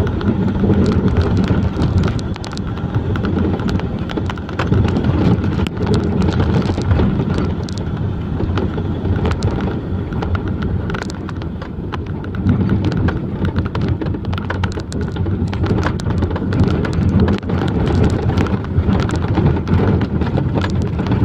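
Logging truck engine running steadily, with dense rattling and clattering over the low engine hum.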